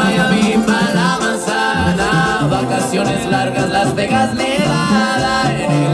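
Music with a singing voice over instrumental backing.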